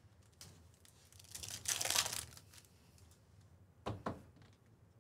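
A 2024 Bowman Chrome hobby pack's wrapper torn open and crinkled, for about a second, then a short rustle as the cards are handled near the end.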